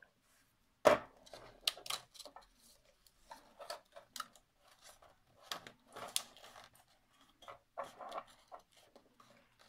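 Hands folding and pressing a glued paper box lid together, with scattered short rustles and small taps of paper, and one sharp knock about a second in.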